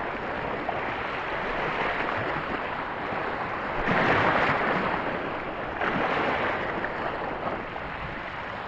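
Surf washing over a shallow reef and rocks, a steady rush that swells about four seconds in and again around six seconds.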